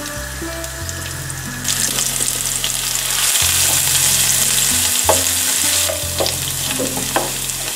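Chopped garlic, onion and capers sizzling in oil in a non-stick frying pan while a wooden spoon stirs them, the garlic and onion frying to golden. The sizzle swells about two seconds in and eases back near six seconds, with a few light knocks of the spoon against the pan.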